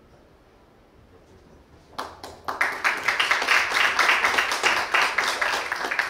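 Audience clapping: quiet at first, then applause breaks out about two seconds in and dies away near the end.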